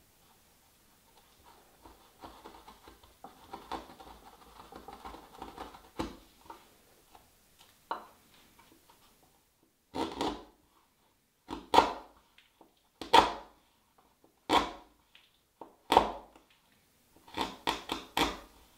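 Chisel cutting black walnut against a 45-degree guide block: soft paring scrapes first, then sharp chopping strikes about every one and a half seconds, ending in four quick ones in a row.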